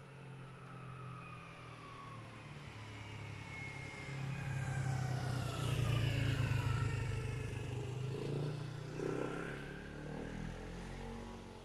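A motor vehicle passing by. Its engine grows louder to a peak around the middle, then fades, and its pitch slides down as it goes.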